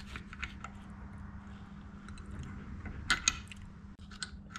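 Small metal clicks and taps of parts being handled and worked loose inside a diesel injection pump's AFC housing held in a vise, with a sharper double click a little past three seconds in. A steady low hum runs underneath.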